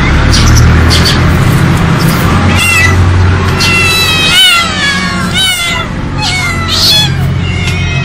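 Several domestic cats meowing over and over, their calls overlapping, starting about two and a half seconds in. A steady low hum runs under the opening seconds.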